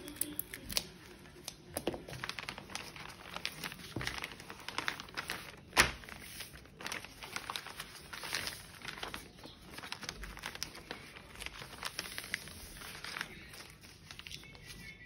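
A large sheet of printer paper rustling and crinkling as it is folded and creased by hand, with scattered small clicks and one sharp knock about six seconds in.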